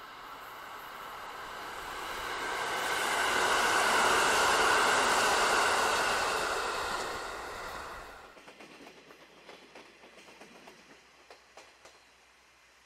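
A train running past on the tracks: the rushing of wheels on rail builds up, peaks and then fades. It is cut off abruptly about eight seconds in.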